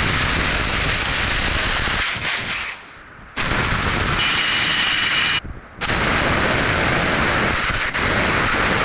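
A 500-watt electric drill running with a loud, rough rattle, switched off and on again briefly twice, near three seconds in and after about five seconds.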